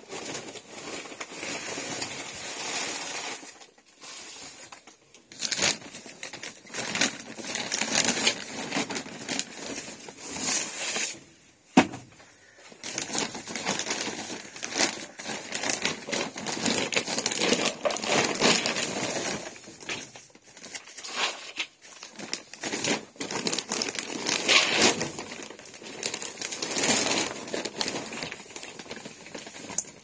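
Bags being handled, rustling and crinkling irregularly with small clicks and short pauses, and one sharp knock about twelve seconds in.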